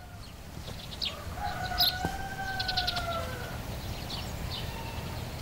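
A rooster crowing once, a long drawn-out call of about two seconds that starts a little over a second in. Small birds chirp briefly around it.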